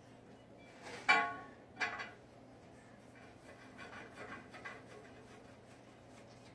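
Metal pipe and fittings clanking: two sharp knocks about a second in, the first ringing on briefly, then a few lighter clinks as the pieces are handled.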